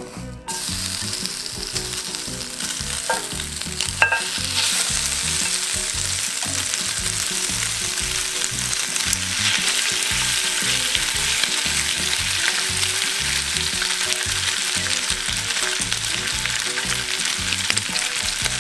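Soy-sauce-glazed thin-sliced pork belly sizzling as it is scraped from a frying pan onto a hot griddle plate with a wooden spatula. The loud, steady sizzle starts suddenly about half a second in, with a single sharp clink about four seconds in.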